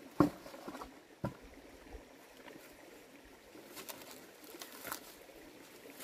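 A bucket scooped into a shallow stream with a splash just after the start, a sharp knock about a second later, then scattered footsteps and rustling over stones and dry grass.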